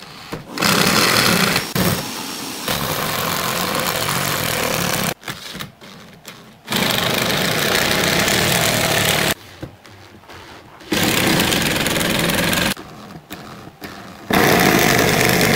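Corded electric drill driving screws into a wooden table frame, running in four spurts of about two to four seconds each, with short pauses between screws.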